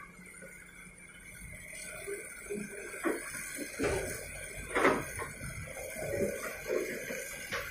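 Soil and rocks tipped from a Hitachi excavator's bucket land in a steel dump-truck bed: a run of irregular thuds and clatter, the loudest just before five seconds in.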